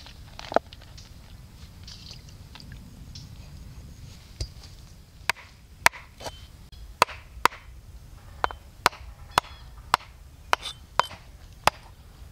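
Cleaver chopping the claw tips off raw chicken feet on a wooden tree-stump block: about a dozen sharp knocks, most of them in the second half at roughly two a second.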